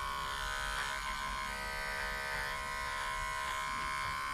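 Electric pet grooming clippers running with a steady buzz as they shave the hair on a puppy's paws.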